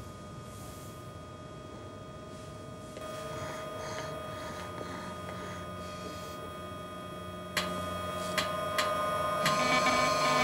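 Electrical hum from a laboratory machine, several steady tones held together. About three quarters of the way in a sharp click sets it louder, and a few more clicks follow as the machine hums more densely, powering up.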